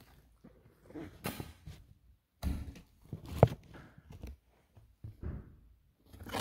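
A few scattered knocks and thumps, the loudest a single sharp knock about three and a half seconds in.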